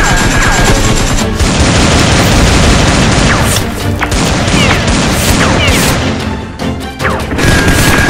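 Action film music under loud gunfire and explosion sound effects. A dense barrage builds about a second in and runs for several seconds, with a few short falling whistles, then thins out near the end.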